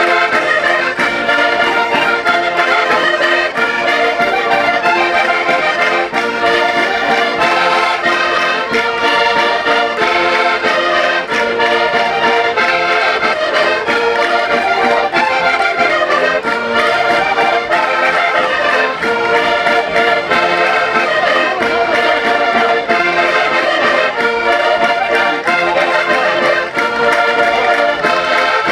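Concertinas playing a chula, the Minho folk dance tune, many quick notes in a steady, unbroken stream of reedy chords and melody.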